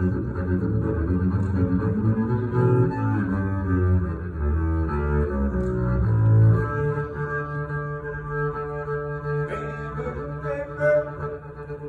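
Upright double bass played with the bow, running through a low line of quickly changing notes, then settling into one long held note about six and a half seconds in.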